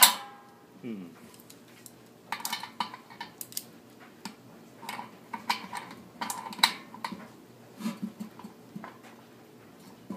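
Stainless steel Sankey keg spear being twisted and rattled in the keg's neck to line up its notches: irregular metal clinks and scrapes, with one sharp ringing clank at the start.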